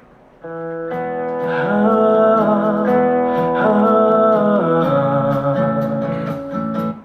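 A Hindi song with singing and guitar playing through a Sony SRS-XB31 Bluetooth speaker. It starts about half a second in and cuts off abruptly just before the end.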